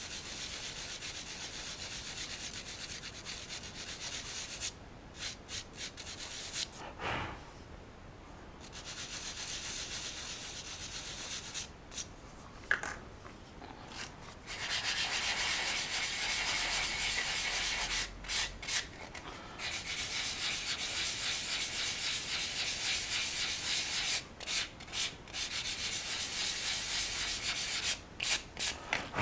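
Hand sanding along a mold line on a cast resin figure part: a steady, scratchy hiss of rapid back-and-forth strokes, stopping briefly several times and starting again.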